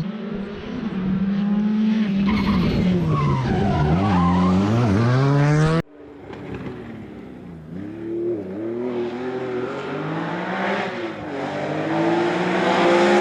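Rally car engines at full attack on a special stage, revving up and falling back again and again through gear changes and lifts, with tyre noise from the cars sliding. About six seconds in the sound breaks off sharply and another stretch begins: a car approaching, its revs climbing.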